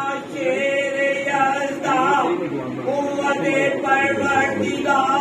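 Men of a majlis gathering chanting together in unison, in repeated held phrases about a second long, as acclaim for the speaker's point.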